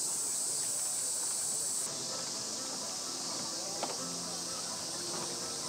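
Steady, high-pitched chorus of insects shrilling, which shifts slightly about two seconds in, with faint voices and a small knock underneath.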